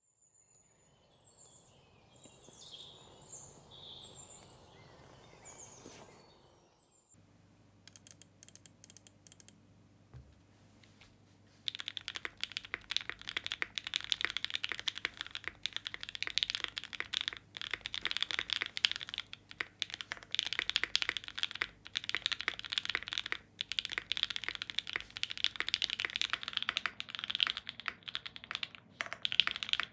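Typing on a Think6.5 V2 mechanical keyboard with lubed Opblack switches, an FR4 plate and GMK keycaps: a dense, fast stream of keystrokes from about 12 seconds in. Before that come a few seconds of faint high chirps, then a handful of scattered key clicks.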